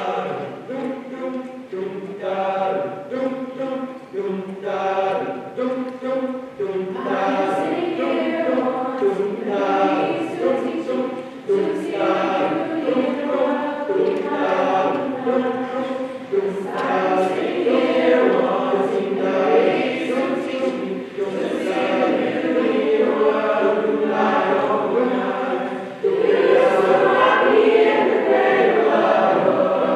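A student choir singing in several parts, a cappella, with no instruments heard; it grows louder near the end.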